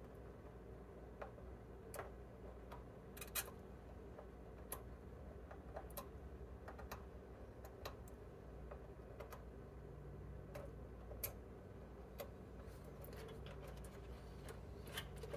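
Faint, irregular small clicks and ticks of a metal tool against a circuit board as folded-down component leads are poked up, over a steady low hum.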